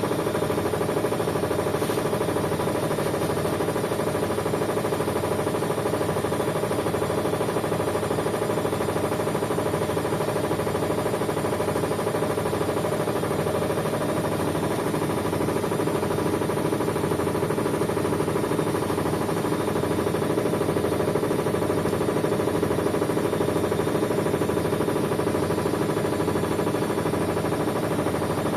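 Whirlpool washing machine running steadily: a continuous motor hum with a regular low pulse about once a second.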